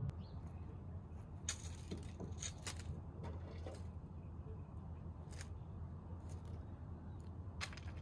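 Scattered dry crackles and rustles in dry leaf litter and pine needles, a handful over several seconds, over a steady low rumble.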